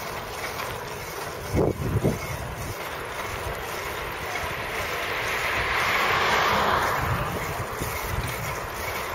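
Wind buffeting the microphone over steady street noise while the camera moves along the road. There are two brief thumps near two seconds in, and a hiss swells and fades around six seconds in.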